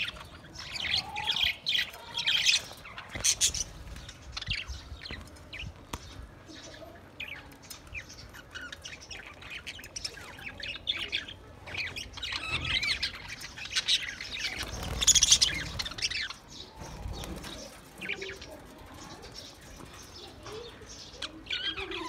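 A flock of budgerigars chattering and chirping, many short calls overlapping, with a louder burst of calls about two-thirds of the way through.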